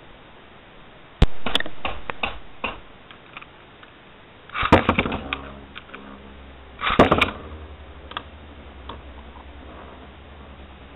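Metal Fight Beyblade tops, one of them a Duo Cancer 230TB, launched into a clear plastic stadium. A sharp clack about a second in trails off into rattling, then two dense bursts of clattering come about two seconds apart as the tops land and strike. A steady low whir of the spinning tops follows.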